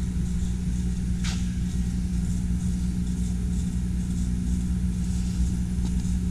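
CO2 laser engraving machine at work, its air compressors running: a steady low machine drone with a faint hiss above it and one brief sweep about a second in.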